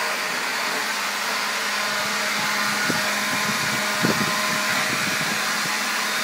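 Leaf blower running steadily: a loud, even rush of air with a steady hum under it. Two soft knocks come about three and four seconds in.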